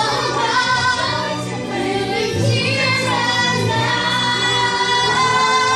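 Show-tune singing over musical accompaniment, with long held sung notes building to the song's close.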